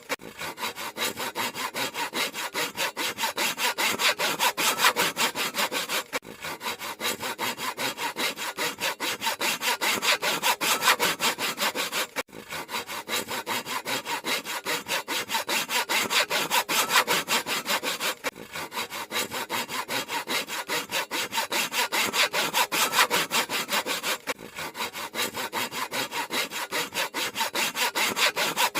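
Handsaw cutting through wood in rapid, even back-and-forth strokes, each stroke a rasping scrape. The sawing drops out very briefly about every six seconds, where the loop repeats.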